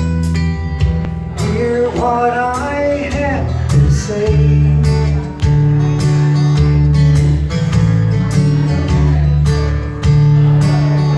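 Acoustic guitar strummed with a man singing, live through a microphone and PA. The voice is most prominent in the first few seconds, and the chords carry on steadily after it.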